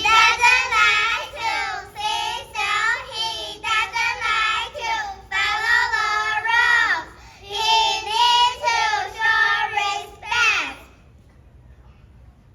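A young child singing in a high voice, phrase after phrase, stopping about eleven seconds in.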